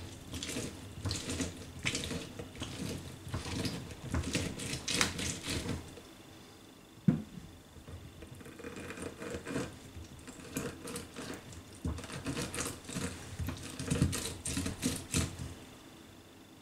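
Lemon half, then lime half, twisted and pressed by hand on a plastic manual citrus juicer: repeated wet squishing and rubbing strokes. A short pause with a single knock about seven seconds in separates the two fruits.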